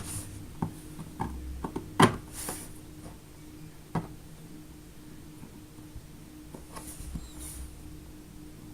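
Play-Doh molds and tools being handled on a table: a scatter of small clicks and knocks, the loudest about two seconds in, then quieter, over a faint steady hum.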